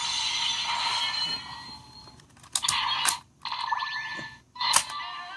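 Electronic toy sound effects played from a small speaker for the ToQger Ressha Drill: a hissing effect for about a second and a half that fades out, then sharp clicks and short bursts of electronic sound with a steady tone and gliding pitches.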